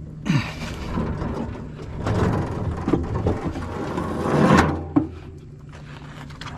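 A heavy object being dragged and scraped across a hard surface for about four and a half seconds, the scrape growing loudest near the end, then a single knock as it comes to rest.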